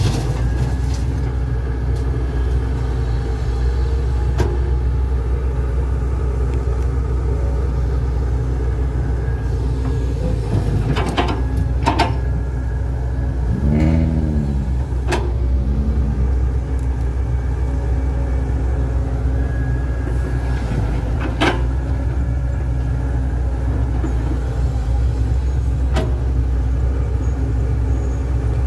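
Heavy machinery at work: the diesel engines of a Komatsu HB205-1 hybrid excavator and a loaded dump truck run with a steady low rumble. A handful of sharp knocks sound as the excavator digs and dumps soil. Midway, a short whine rises and falls twice.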